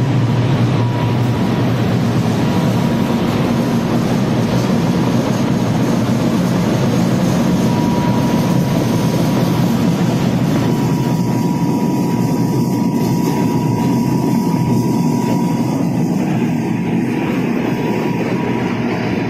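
Corn flakes production line machinery running: a loud, steady mechanical din with a low hum and a thin steady whine over it.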